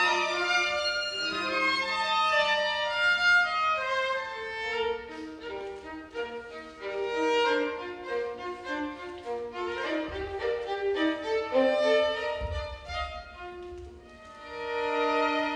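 A chamber string orchestra playing, with the violins carrying the melody over the lower strings.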